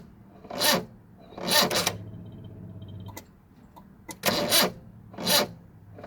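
Starter motor cranking a 1974 Honda Civic's 1.3-litre engine very slowly and laboriously, the engine not catching. It turns over in heavy surges about once a second, stops for a couple of seconds, then cranks again. The owner is unsure whether the slow cranking comes from a weak battery or a failing starter motor.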